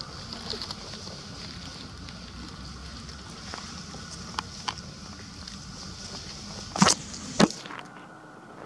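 Steady outdoor background noise, a high hiss over a low rumble, with a few faint clicks. Two loud sharp clicks come about half a second apart near the end, and the low rumble cuts off just after them.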